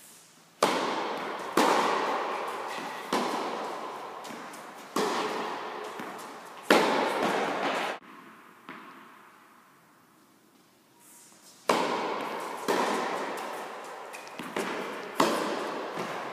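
Tennis ball struck by a racket and bouncing on an indoor court, each sharp pock ringing out in the hall's long reverberation. Several hits one to two seconds apart, a break after the sound cuts off abruptly about eight seconds in, then another run of hits near the end.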